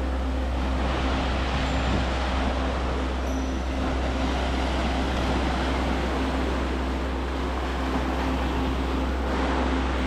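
Sea waves washing and foaming over a rocky shoreline in a steady rush of surf, with wind rumbling on the microphone and a faint steady low hum underneath.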